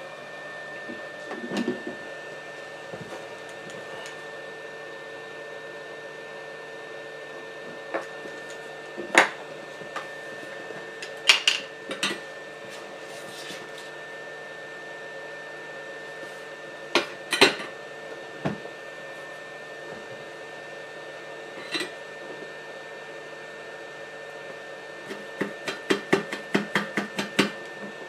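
Light metallic clicks and taps from soldering work at a bench: the iron and hand tools touching the board and parts, with a quick run of clicks near the end. Under them runs a steady electrical hum with a thin high whine.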